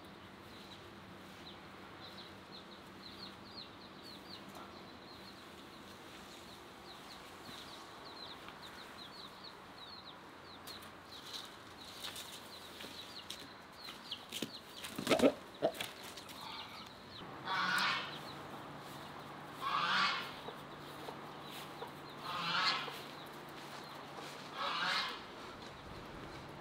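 A rooster being caught by hand: a brief loud flurry of knocks and flapping about fifteen seconds in, then four loud squawks about two and a half seconds apart. Before that, rapid high chirping from a small bird.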